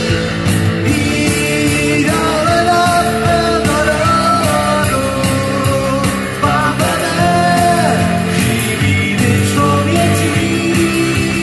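Live amplified rock band playing a song: drum kit, electric guitar and bass guitar, with a sung vocal line.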